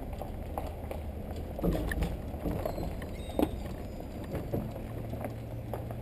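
Boat and trailer rattling and knocking as they are towed slowly over a rough gravel road, over a low rumble of tyres and engine; a steady low hum comes in near the end.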